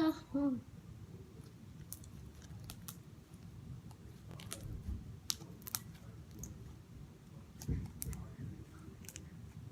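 Homemade slime being handled and squeezed, giving scattered small sticky clicks and pops, several close together about halfway through and a few more near the end, over a low steady hum.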